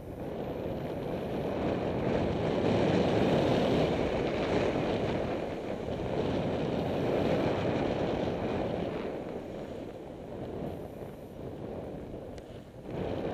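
Wind rushing over a helmet camera's microphone on a bicycle descent, with tyre and road noise under it. It swells about two seconds in and eases off in the last few seconds.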